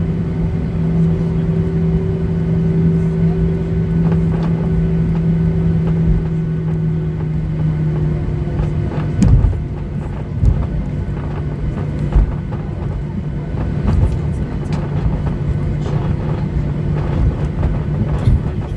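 Cabin noise of a Boeing 737-800 taxiing: the CFM56 engines' steady hum at taxi power over a low rumble, its pitch dropping slightly about eight seconds in. A few short thumps follow from about nine seconds in, as the aircraft rolls over the taxiway.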